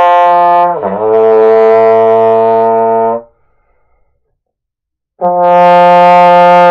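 Trombone playing a held note that drops to a lower note about a second in and is held for about two seconds. After about two seconds of silence a second trombone sounds the same higher note, dropping lower again near the end.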